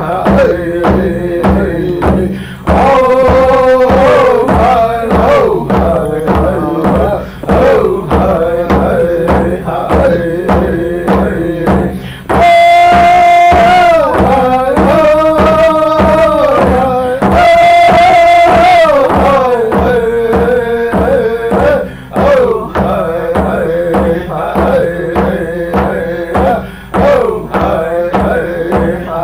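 Men singing a song to a steady drumbeat, the voices holding long notes and rising higher and louder midway through.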